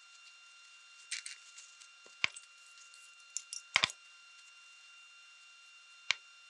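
Tools or small parts being handled: a few sharp clicks and knocks, a cluster about a second in, a single hard knock just after two seconds, the loudest group near four seconds and one more click near the end, over a faint steady high whine.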